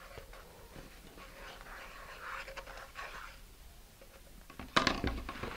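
Faint scraping and rubbing as a metal hobby-knife handle smears glue around the inside of a cardboard rocket body tube, then a sharp knock with a few clicks near the end.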